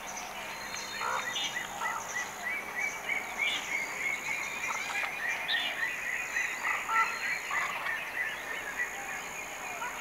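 Pond-side wildlife chorus: many short calls repeated rapidly, busiest through the middle, over a steady high insect drone, with a few scattered bird chirps.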